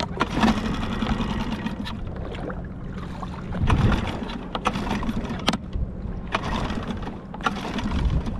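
Small waves slapping and sloshing against an inflatable dinghy's hull, over a steady low rumble, with several brief surges of splashing and a few sharp knocks.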